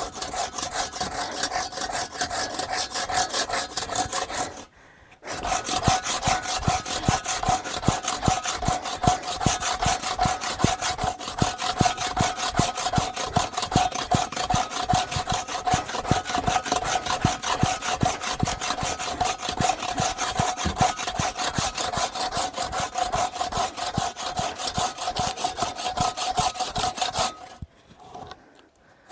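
A saw cutting through wood with quick, even strokes, pausing briefly about five seconds in and stopping near the end.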